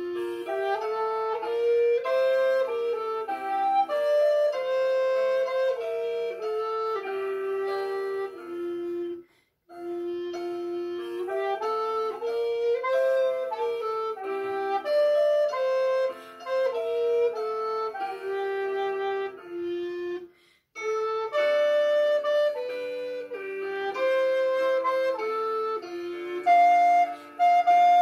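A solo recorder playing a slow song melody in phrases, with a short pause for breath about nine seconds in and again about twenty seconds in.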